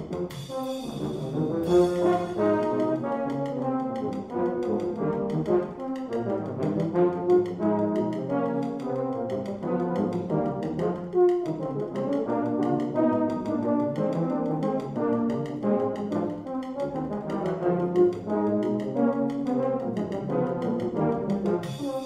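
Low brass ensemble playing a lively piece in a steady rhythm of short, detached notes over a moving bass line.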